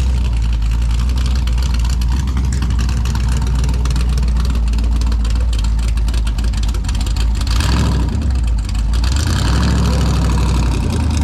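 Texas Speed 416 ci LS3 V8 running at a low, steady idle, freshly started on Holley EFI; around eight seconds in the noise briefly rises.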